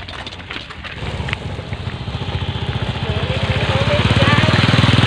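A small motorcycle engine approaching, its steady pulsing beat growing louder from about a second in and running close by near the end.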